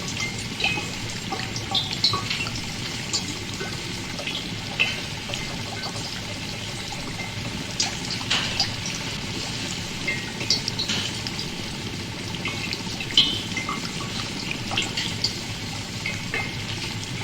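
Liquid bubbling steadily, with many small irregular pops and gurgles scattered over a continuous watery wash: a bubbling-laboratory sound effect.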